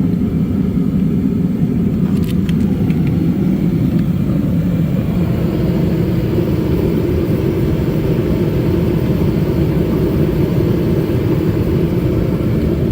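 A vehicle engine running steadily, a continuous low rumble, with a few faint clicks about two to three seconds in.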